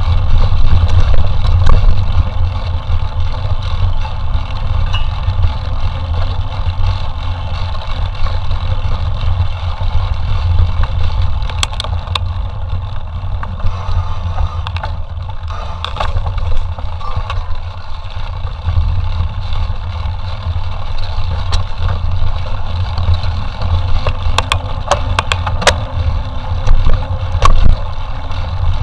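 Mountain bike being ridden over a forest trail: a steady low rumble of wind and ride noise on the microphone, with the bike rattling and a few sharp knocks from rough ground, several close together about 25 seconds in.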